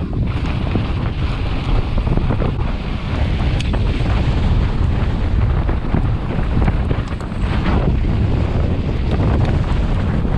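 Heavy wind buffeting the microphone of a mountain bike descending at full speed, with the bike's tyres running over loose volcanic dirt and scattered knocks and rattles from the bike.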